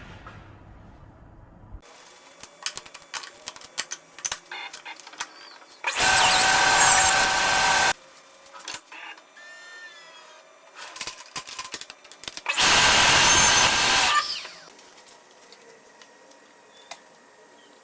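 Handheld power tool running in two short bursts of about two seconds each, a few seconds apart, at a steady pitch. Scattered clicks and knocks of handling wood and tools come between the bursts.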